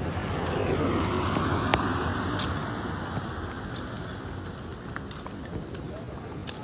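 Road traffic noise: a steady vehicle hum, with one vehicle passing that swells and fades in the first three seconds, and a sharp click near its loudest point.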